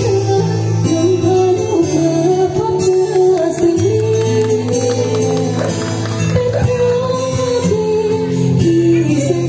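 A woman singing a slow devotional song into a microphone over instrumental backing music, holding long, wavering notes.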